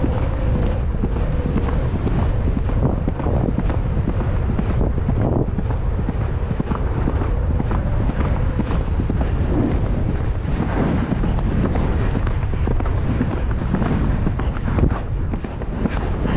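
Heavy wind buffeting the microphone of a rider-mounted camera as a horse gallops over grass, with its hoofbeats coming through underneath.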